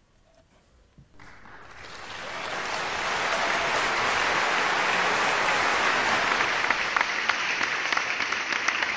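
Crowd applause that starts about a second in, swells over the next couple of seconds and then holds steady, with single claps standing out near the end.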